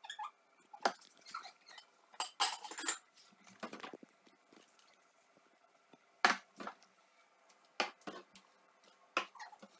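Dishes and jars clinking and knocking as they are handled and set down on kitchen cabinet shelves. There are scattered separate knocks with quiet between them, and the sharpest comes about six seconds in.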